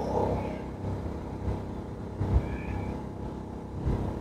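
MAXPEEDINGRODS MXR6250iE inverter generator running steadily at about half load, heard from some distance. A few low bumps come about two and a half seconds in and again near the end.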